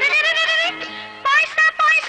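Music from an old Bengali film song: a melody with sliding, wavering notes and short breaks over accompaniment.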